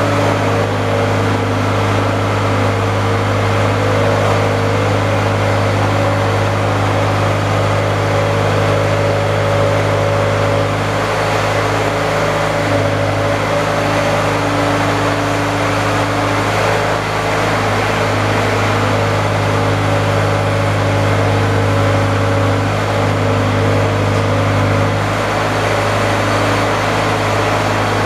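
An engine or motor running steadily, with a constant low hum that holds one speed throughout.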